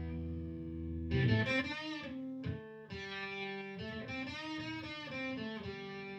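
SHXA electric guitar with a single bridge humbucker, played through an amp's low-gain channel and picked up by a phone: a held chord rings out, then a short lead phrase of single notes with string bends, ending on a long sustained note.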